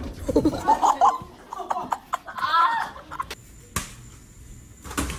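People laughing and shrieking, with a few sharp knocks in the second half.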